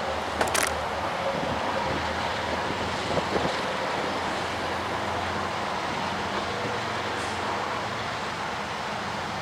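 Freight cars of a long train rolling past: a steady rumble of wheels on rail with a faint steady tone, and a couple of short clicks about half a second and three seconds in.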